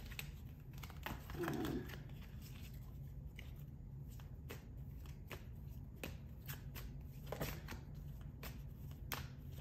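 A deck of oracle cards being shuffled by hand: a run of quick, irregular card clicks and slaps.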